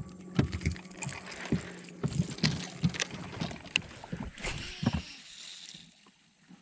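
Irregular knocks and clatter of gear handled aboard a fishing boat, over a steady low hum; it grows much quieter about five seconds in.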